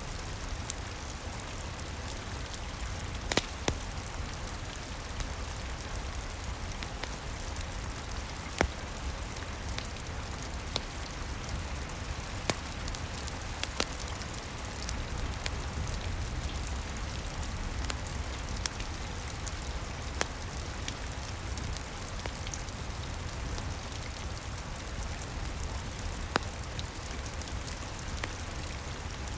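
Steady rain with a crackling wood fire, a handful of sharper pops standing out every few seconds over a constant low rumble.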